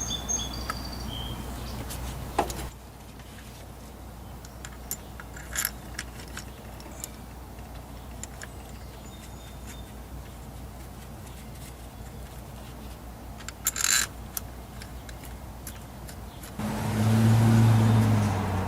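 Scattered small metallic clicks and clinks of hand tools and engine parts being handled, with two brief sharper clinks. A louder low steady hum starts about two seconds before the end.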